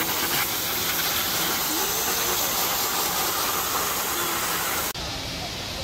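Steady hissing background noise with faint distant voices. About five seconds in it cuts abruptly to a quieter, duller background.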